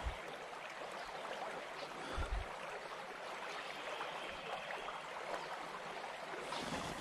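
Creek water flowing in a steady rush, with a soft low bump a little over two seconds in.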